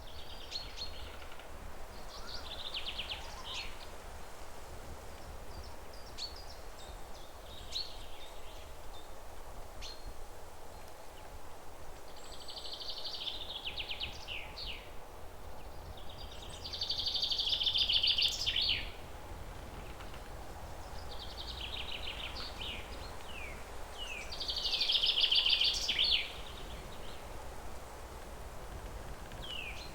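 A songbird singing short trilled phrases of a second or two, repeated every few seconds and loudest about two-thirds of the way through, over a steady low rumble.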